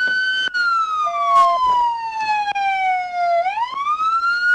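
Police car siren on a slow wail: the pitch rises, holds briefly, falls slowly over about three seconds, then climbs again near the end.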